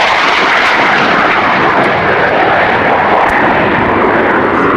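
Blackburn Buccaneer's twin Rolls-Royce Spey turbofans, a loud, steady jet noise as the aircraft flies past and climbs away.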